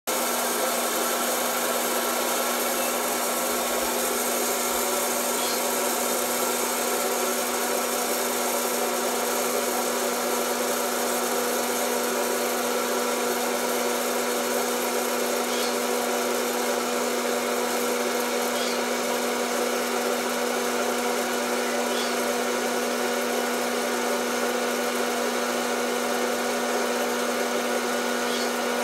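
Death Star hot-air popcorn maker running: its fan motor blows hot air with a steady hum and a held tone. A few faint ticks sound now and then.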